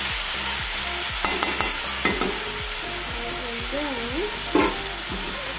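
Diced vegetables sizzling steadily in hot oil in an iron kadai while a metal spatula stirs and scrapes them, with a few short scrapes against the pan.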